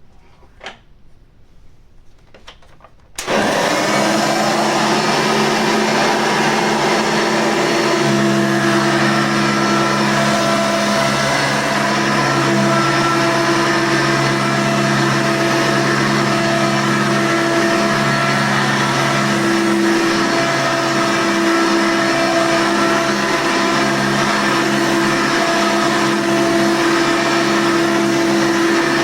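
Hoover Elite 2 vacuum cleaner switched on about three seconds in, after a couple of faint clicks: the motor starts suddenly and runs steadily at full speed with a hum.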